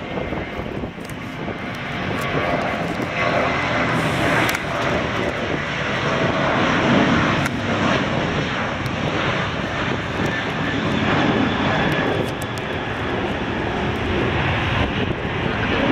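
Jet airliner's engines passing close by, the noise building over the first few seconds and then holding loud, swelling about halfway through and again a few seconds later.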